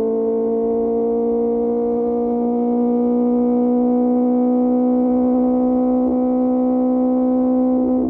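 QJ Motor SRK600 inline-four engine through an SC-Project exhaust, held at high revs in gear, its pitch climbing slowly and steadily as the bike accelerates.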